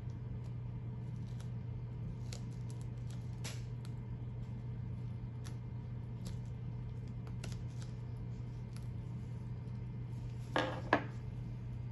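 Scattered light clicks and rustles of a vinyl stencil on transfer paper being handled and lined up on a sneaker's toe box, with two louder short rustles about ten and a half seconds in, over a steady low hum.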